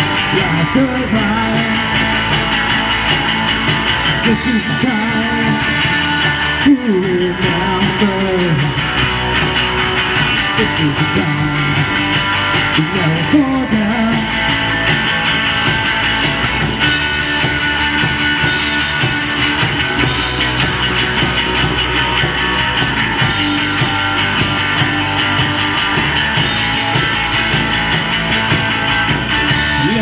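A rock band playing live through amplifiers: electric guitars, bass guitar and a drum kit.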